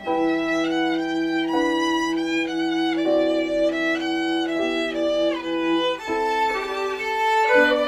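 Small string ensemble of violins playing a slow bowed melody with piano accompaniment, the notes sustained and changing every second or so over a long-held lower note.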